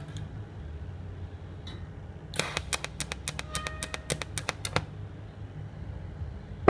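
A TIG welder running with a home-made pulse box: a steady low hum, and for about two and a half seconds in the middle a fast, even run of sharp clicking crackles, about seven a second, as the arc is pulsed.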